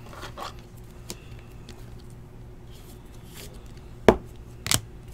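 Sports trading cards being handled: a faint rustle near the start, then about four seconds in a sharp knock and a second one half a second later as cards are set down on the stack on the table. A low steady hum sits underneath.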